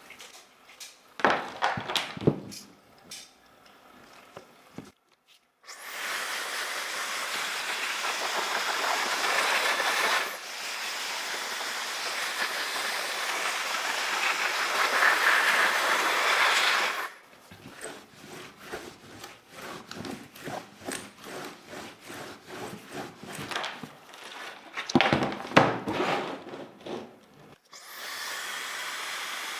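Keyboard-cleaning sounds: a few sharp clicks and knocks, then a long steady hiss of scrubbing or spraying, then irregular clicking and rubbing, and the hiss starts again near the end.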